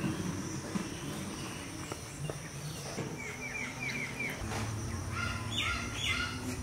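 Birds calling over background ambience: a quick run of about six short chirps midway, then a few louder calls near the end, with a faint low hum underneath.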